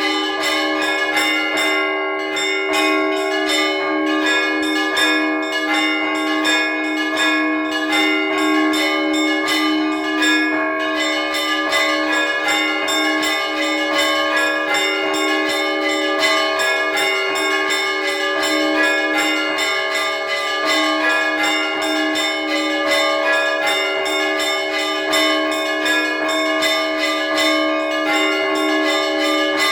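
Russian Orthodox church bells ringing a trezvon: rapid, evenly repeated strokes of the small bells over the sustained ringing of the larger bells, all sounding together without a break.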